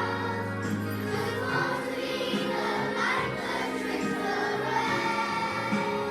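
A children's choir singing together with musical accompaniment.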